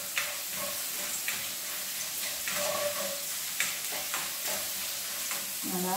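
Oil sizzling in a nonstick wok as mustard seeds, chana dal and curry leaves fry for a tempering, stirred with a spatula. A steady hiss, with a few short clicks and scrapes from the spatula and the frying seeds.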